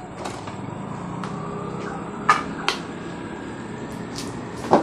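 A few sharp, brief knocks and taps, the loudest about two seconds in and again near the end, over a steady background hum.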